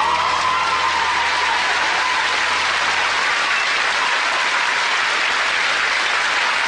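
Studio audience applauding steadily at the end of a song, with the song's last held note dying away in the first second.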